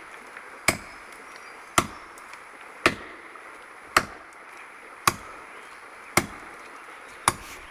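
Axe chopping into the trunk of a large standing tree: seven sharp, even strikes, about one a second.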